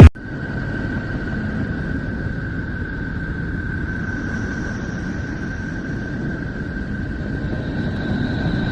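A 'space sound' recording of the kind sold as the sound of a planet: a steady low rumbling hiss with a thin steady whistle-like tone held through it and fainter high tones fading in and out.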